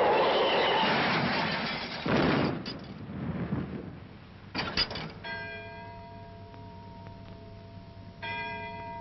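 A rushing noise fades out with a couple of short crashes, then a deep bell tolls twice, about three seconds apart, each stroke ringing on with several steady tones.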